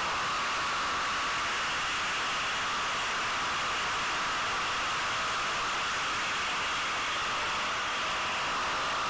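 Yamaha WR250 enduro motorcycle riding a dirt track, heard through an onboard camera as an even, steady rushing hiss of wind and engine, with no distinct engine note or separate knocks.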